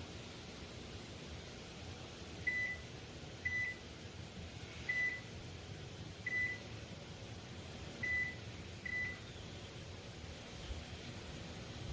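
Sharp R-32E(S) microwave oven beeping six times, short high beeps at uneven intervals, over a low steady hum.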